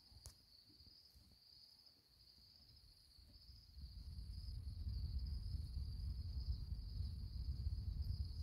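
Crickets chirping in a steady, unbroken high trill. A low rumble comes in a few seconds in and carries on under it.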